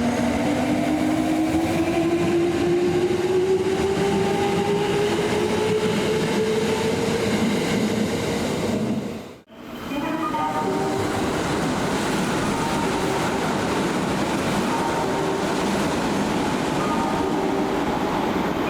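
Kintetsu electric train pulling away, its traction motors whining in a pitch that rises steadily. About halfway the sound briefly drops out, then train running noise returns with motor tones that change pitch in steps.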